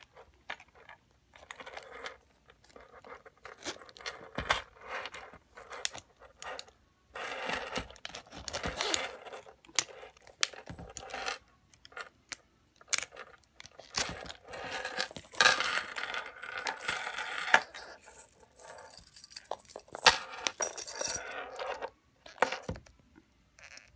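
A red patent leather clutch with a gold metal frame and gold link chain strap being handled: the chain links jangle and clink, with sharp clicks and rubbing against the hard frame and glossy leather. It comes in irregular bursts with short pauses between.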